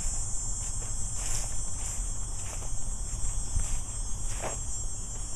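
A chorus of crickets chirping steadily, a continuous high-pitched trill, over a low background rumble.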